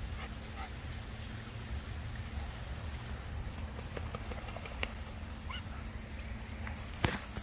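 Geese on the river honking faintly a few times over a low steady rumble of wind on the microphone; a sharp knock near the end.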